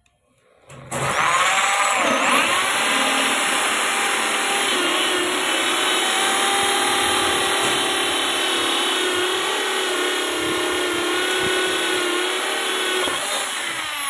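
Electric drill with a hole saw cutting a conduit hole through a wooden switch box: the motor spins up about a second in, runs steadily as the teeth grind through the wood, and winds down near the end as the cut finishes.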